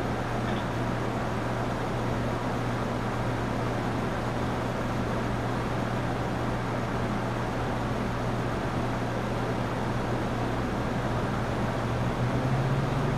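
A steady low machine hum under an even hiss, growing slightly louder near the end.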